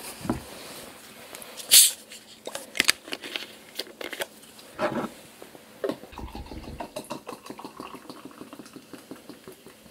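A plastic bottle of grape soda is opened, with a few clicks and short hisses, and then poured into a glass mug. The soda fizzes as it fills.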